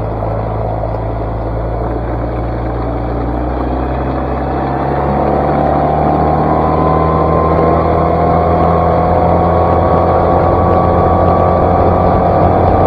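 Outboard motor on a small skiff running hard at wide-open throttle, its pitch climbing slowly as the boat gathers speed toward top speed, over the rush of water along the hull.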